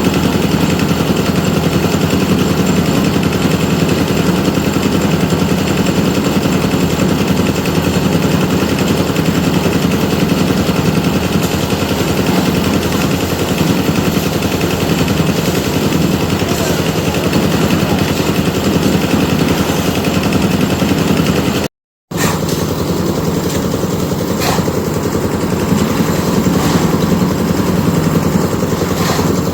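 Diesel engine of the slab-concreting machine running steadily at a constant speed, with a dense, rapid chugging.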